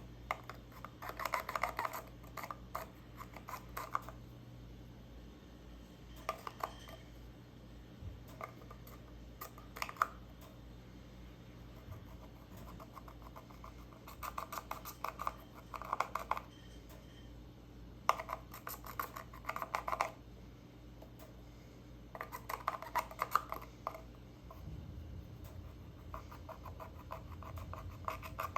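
Glitter slime being squished and pressed by hand, giving bouts of quick wet clicks and crackling pops, each lasting a couple of seconds, with short pauses between them.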